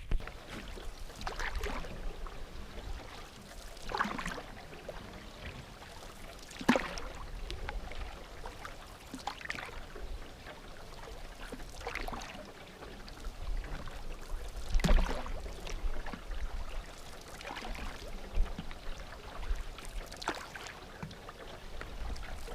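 Canoe paddle strokes through the water, about one every two and a half seconds, with wind rumbling on the microphone.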